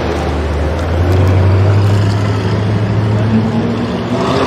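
Sports-car engine and exhaust running, growing louder about a second in with the revs climbing slowly.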